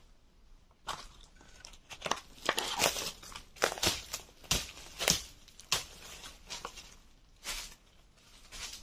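Footsteps crunching through dry leaf litter and brushing past undergrowth: a run of irregular rustles and crackles starting about a second in.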